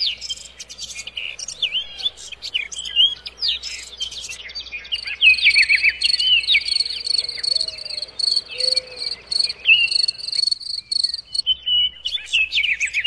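Birds chirping and whistling in short calls, with an insect chirping in steady pulses about three times a second through the middle.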